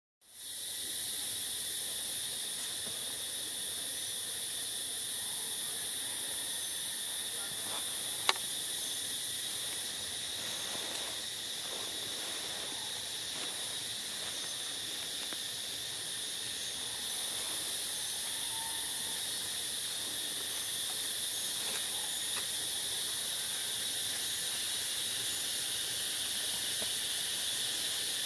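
Steady, high-pitched drone of an insect chorus such as cicadas or crickets, with one sharp click about eight seconds in.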